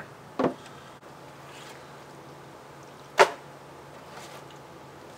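Two short knocks, a lighter one and then a louder one about three seconds later, as a plastic cutting board is handled on a wooden table, over a faint steady low hum.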